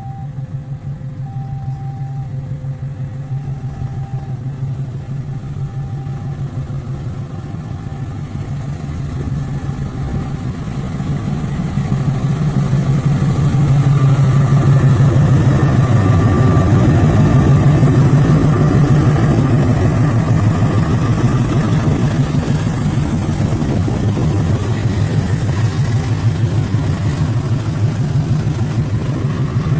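KAI CC206 diesel-electric locomotive's engine running steadily, then growing louder about twelve seconds in as it powers up to pull away. A two-note tone repeats every couple of seconds and stops after about seven seconds.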